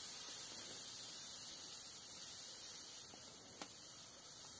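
Granulated sugar streaming from a bag onto salt in a plastic tub, a faint steady hiss that slowly fades, with one small click about three and a half seconds in.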